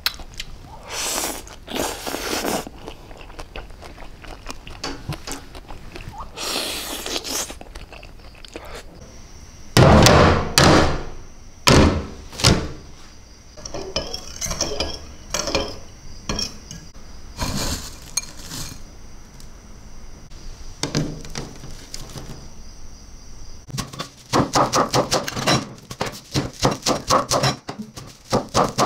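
Kitchen food-preparation sounds: scattered knocks and scraping of utensils against bowls, including a spoon stirring a chilli sauce. Near the end comes a fast run of cleaver strokes chopping green herbs on a wooden chopping board.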